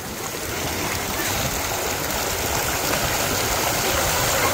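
Water pouring down a water slide and splashing around a rider as she slides down it: a steady rushing that grows a little louder in the first second.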